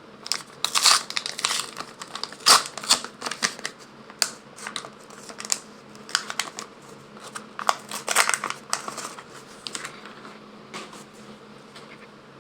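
Crinkling and crackling of a small Pokémon card pack wrapper being torn open and handled, in irregular bursts for most of the time, dying down near the end.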